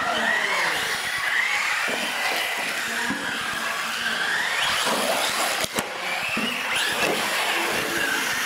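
Several radio-controlled UTV trucks racing, their electric motors whining, the pitch rising and falling with the throttle as they accelerate and slow. A short knock comes a little past halfway.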